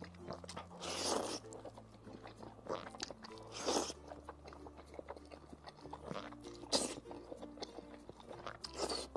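A person slurping mouthfuls of cheese-covered spicy fire noodles in about four short slurps, with wet chewing between them. Soft background music runs underneath.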